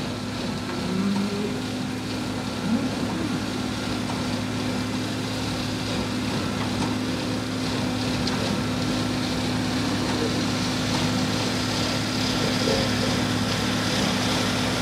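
Tractor engine running at a steady speed, driving a bale processor that shreds straw and blows it out as bedding. It gets a little louder toward the end.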